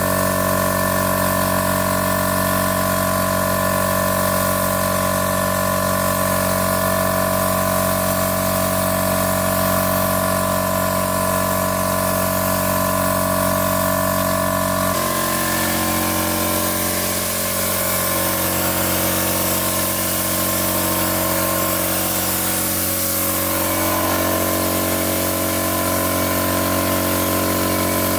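A machine engine running steadily at a constant speed, its tone changing about halfway through.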